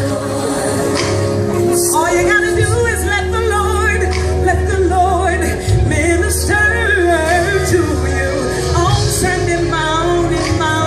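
Music with several voices singing over a sustained bass line and cymbals, in a gospel style.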